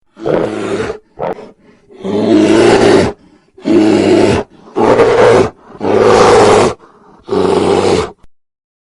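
A bear roaring repeatedly: about six loud roars, each around a second long, with short pauses between them and two brief grunts about a second in.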